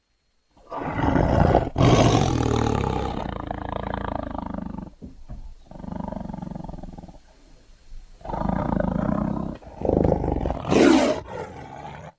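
A series of big cat roars and growls, made as creature sound effects for the extinct cat Panthera shawi. They start after about half a second of silence and come one after another, each fading away. The call near the end is brighter and higher.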